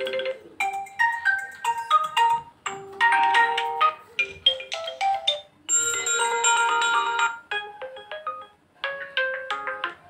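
Built-in ringtones of an Oppo F17 smartphone playing one after another through its speaker: several short melodic snippets, each cut off abruptly when the next preset is tapped.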